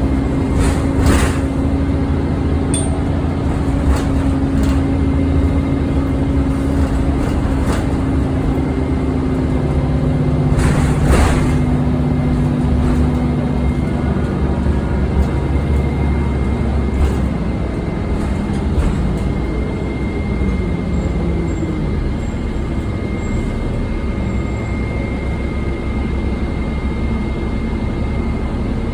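Interior of an Orion diesel city bus under way: the diesel engine and its cooling fan run loudly, with a steady high whine and a few rattles and knocks. The engine note drops about halfway through.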